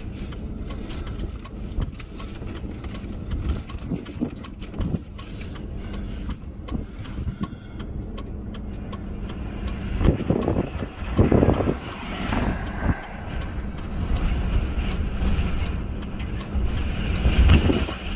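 Vehicle cabin noise while driving: a steady low engine and road rumble with scattered clicks, growing louder in swells about ten seconds in and again near the end.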